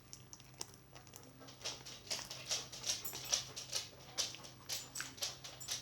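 Sticky slime being kneaded by hand, with a run of irregular wet clicks and small pops as it is squeezed and pulled apart.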